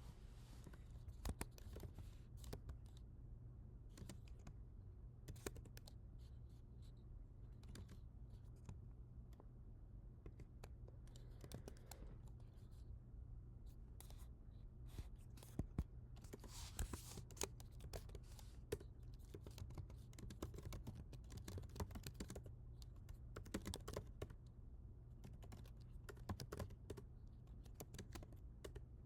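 Typing on a computer keyboard: irregular runs of key clicks with pauses between them, the busiest run about halfway through, over a steady low hum.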